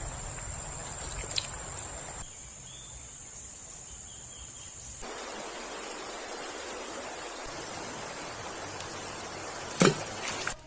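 Outdoor ambient noise, a steady hiss that changes abruptly twice as the clips are cut, with a thin steady high-pitched whine through the first half and a brief loud bump near the end.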